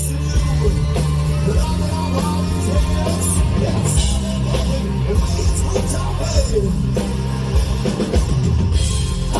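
Rock music with a heavy, steady bass line and a wavering melody line above it.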